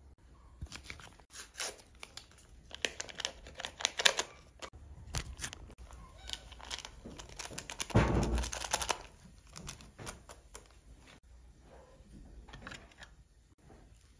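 Close-up food-preparation handling sounds: a paper sachet crinkling and tearing among many light clicks and knocks. About eight seconds in there is a louder patch of rustling with a thump as the sachet's powder is shaken onto flour in an enamel bowl.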